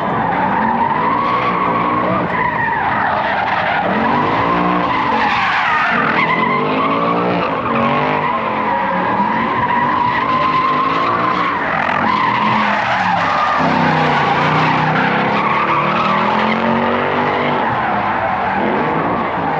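Car tyres squealing in a long continuous skid, with engine revs rising and falling repeatedly underneath.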